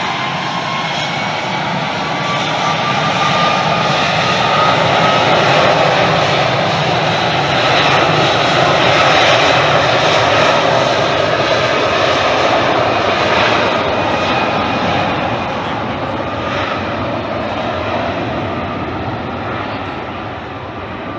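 Airliner's engines as it passes by: a whine rising slightly in pitch at the start, the roar building to its loudest between about four and ten seconds in, then slowly fading.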